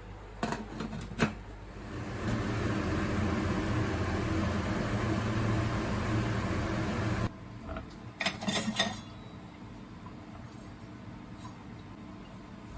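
Kitchen clatter of a few sharp knocks, then a steady whooshing noise with a low hum for about five seconds that cuts off suddenly, followed by more clinking and clattering.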